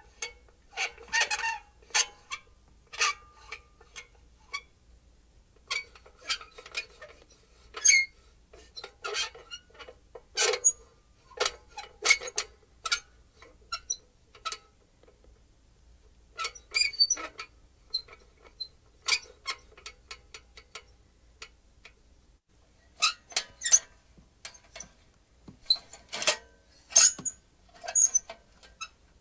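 Small metal lantern being moved and shaken: its metal frame and handle creaking and its glass and metal parts rattling and clinking in irregular bursts, with short pauses between them.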